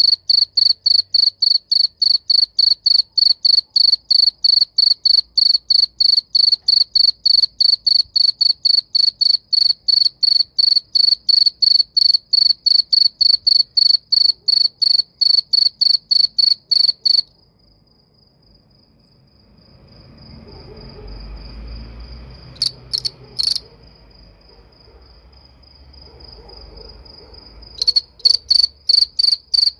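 A cricket chirping loudly in an even rhythm of a few high-pitched chirps a second. About seventeen seconds in it falls silent, leaving a fainter steady cricket trill and a low rumbling noise, broken by a few chirps. The loud chirping starts again near the end.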